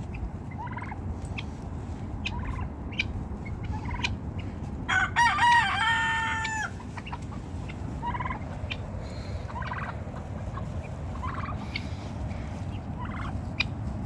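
Backyard poultry calling: a rooster crows once about five seconds in, the loudest sound, a call that bends at first and then holds steady for well over a second, with short scattered calls from the turkeys and other fowl before and after.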